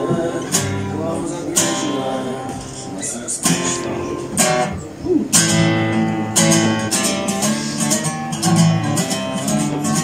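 Acoustic guitar strummed in chords, with sharp strokes about once a second and the chords ringing between them: an instrumental passage between sung lines.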